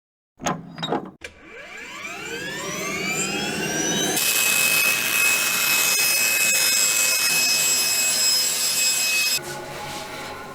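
Bandsaw switched on, its motor and blade spinning up with a rising whine, then running. About four seconds in, a louder steady hiss with a high whine sets in as the blade cuts through a thick oak veneer strip. It stops abruptly near the end, leaving the saw running.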